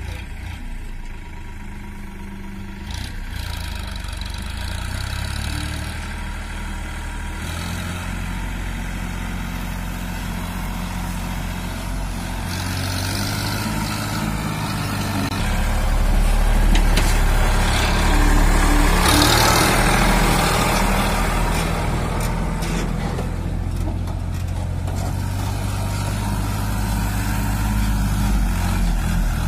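Sonalika DI 47 RX tractor's three-cylinder diesel engine running steadily as it pulls a fully loaded trolley of soil, growing louder about halfway through as it comes nearer.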